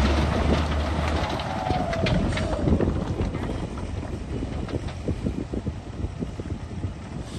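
Radio-controlled model bulldozer at work: a deep hum cuts off about a second in, and a motor whine falls in pitch and fades out by about three seconds. Short clicks and rattles keep going as it gets quieter.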